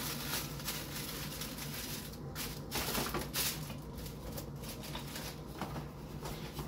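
Plastic wrapping rustling and crinkling as a roll of phyllo dough is unwrapped and handled, with light irregular clicks and knocks, loudest about three seconds in, over a low steady hum.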